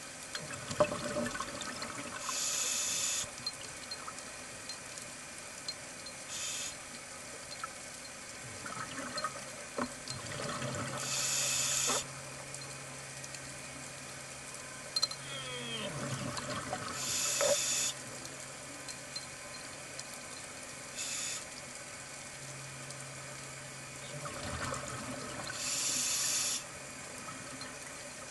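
Underwater sound of a scuba diver breathing through a regulator: short hisses and bubbling that repeat every few seconds. A low steady hum runs through the middle.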